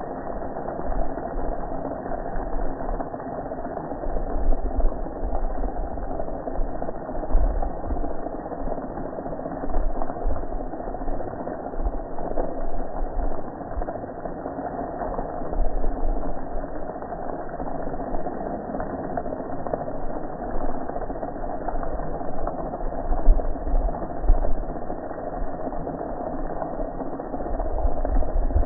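Pressure washer running steadily, its spray of soapy water hitting a gas grill, with uneven low bumps underneath.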